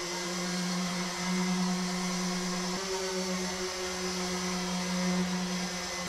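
A small electric motor running steadily, giving a constant low hum with a whirring hiss above it.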